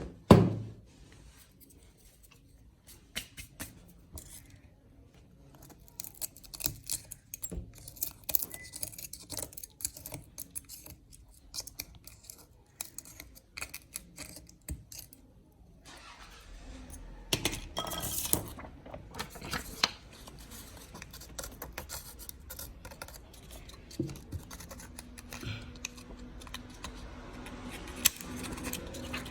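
Small hand tools scraping and clicking on an iPhone 11's cracked back glass and its glue, in an irregular run of clicks and scrapes. A sharp knock comes right at the start, and a low steady hum joins about halfway through.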